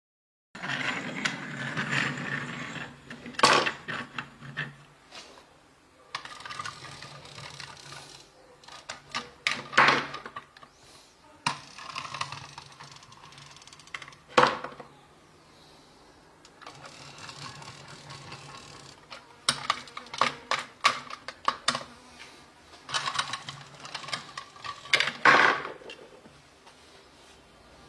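Hard plastic toys being handled and set down on a table: scattered clicks and knocks, with handling noise between them.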